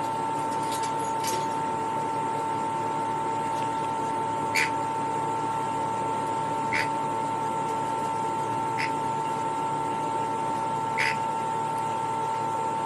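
A steady electrical hum with a constant tone, and a small pet bird giving short, sharp chirps every few seconds, six in all.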